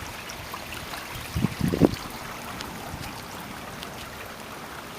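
Steady rain with water running along the street, scattered drops ticking. A short low rumble about a second and a half in.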